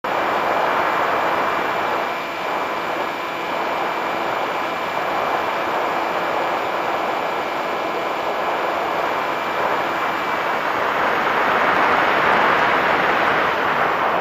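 Steady rush of airflow and motor noise picked up by a camera mounted on a Multiplex EasyStar electric RC plane in flight, with a faint high whine that fades out about two-thirds of the way through.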